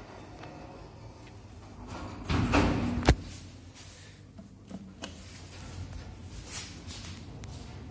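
Zremb lift's sliding doors running shut with a short rumble and closing with a sharp bang about three seconds in. A couple of faint clicks follow as the call button is pressed, over a low steady hum.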